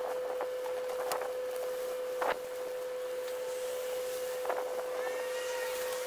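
Scattered rustles and knocks of a tent being worked on by hand in snow, the sharpest about two seconds in, over a steady hum. Faint gliding whistles come near the end.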